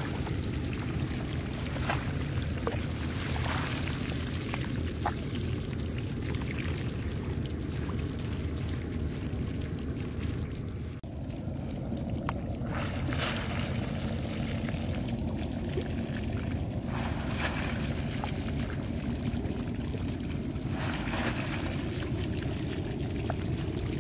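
Water pouring and splashing as a fine-mesh fishing net holding tiny shrimp is lifted and drained, with scattered small splashes over a steady low rumble. A brief drop comes about halfway through.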